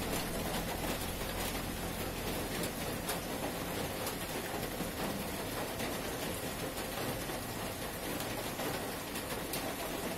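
Steady rain on a roof: an even, unbroken hiss with faint patter.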